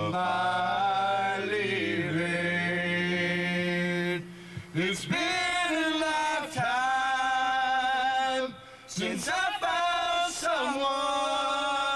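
Men's voices singing a cappella, holding long wordless notes in harmony that glide from pitch to pitch, with short breaks about four and a half and nine seconds in.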